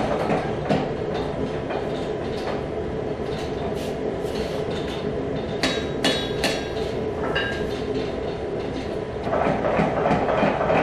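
Mechanical power hammer pounding a red-hot damascus barrel tube in a rapid run of blows that stops about a second in. The hammer's drive keeps running while a few separate hand-hammer blows on the anvil ring out around the middle. The power hammer starts pounding again near the end.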